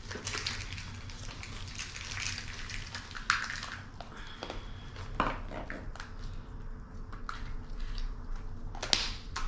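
Hollow plastic Easter eggs being handled, clicked open and snapped shut while they are filled, with candy wrappers crinkling: a string of small sharp clicks and rustles, the loudest about three seconds in.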